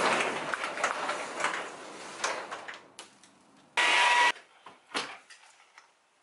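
Hand tools working on a car engine: irregular scraping, rattling and clicks that fade after about three seconds, then a brief loud hiss about four seconds in, followed by a few faint clicks.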